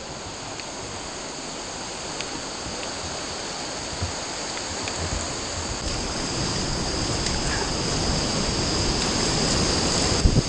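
Fast, swollen river water rushing, with whitewater rapids ahead, growing steadily louder as the canoe nears them.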